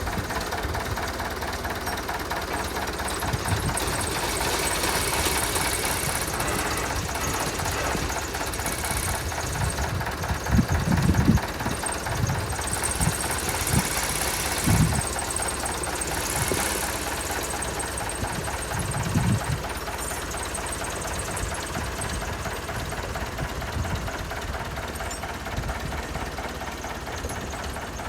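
Tractor engine running steadily, with a few brief louder surges.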